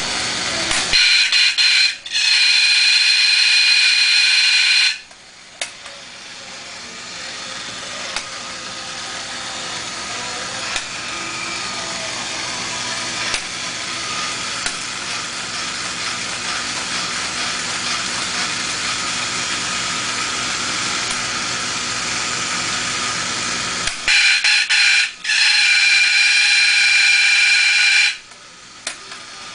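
Marx Brewster the Rooster battery-operated toy crowing twice, a buzzy mechanical crow each time, a short note followed by a longer held one. Between the crows its motor and gears whir steadily as it rolls along.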